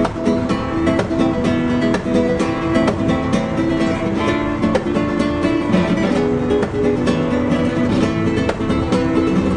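Background music of fast-plucked acoustic guitar with a strummed, flamenco-like feel.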